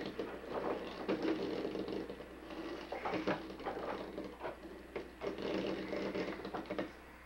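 A small electric motor whirring in stretches, stopping and starting, with scattered plastic clicks and knocks.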